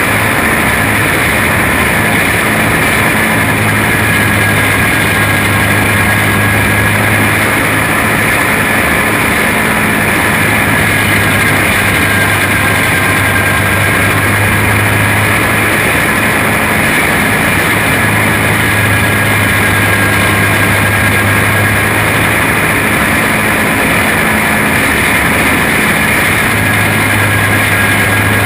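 Quarter midget race car's flathead engine running at racing speed, heard onboard with wind rush. The drone is steady, and its pitch rises and falls slightly through the laps.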